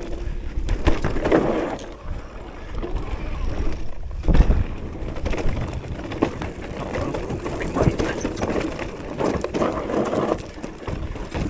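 Mountain e-bike riding down a rough dirt trail: tyre noise over the ground with repeated knocks and rattles, over a steady low rumble.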